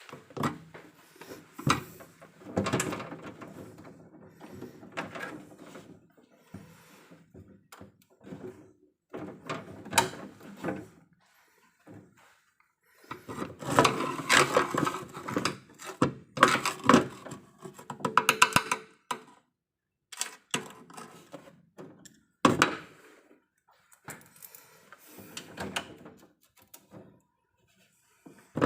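Irregular knocks, clicks and rustling of small objects being handled, in bursts separated by short silent gaps.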